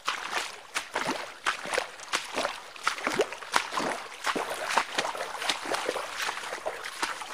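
Footsteps wading through shallow river water, with irregular splashes and sloshes about two or three times a second.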